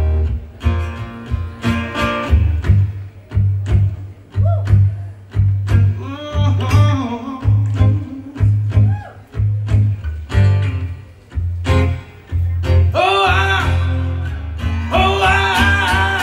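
Live band playing a country song: guitars over a steady pulsing bass and drum beat, in a stretch without lyrics after the chorus, with a voice holding long wavering notes near the end.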